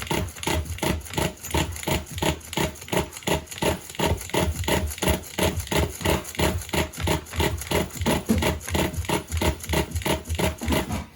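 The 3.0-litre engine of a four-wheel-drive vehicle cranking on its starter without catching, in a quick even rhythm of turning-over beats. The engine is cold and has not run for five months, and the owner suspects the battery may be weak.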